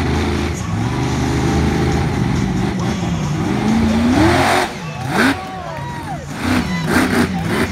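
Monster truck engine running hard and rising in pitch as it revs up to hit a ramp, then the throttle drops off suddenly as the truck leaves the ramp, followed by a few sharp revs.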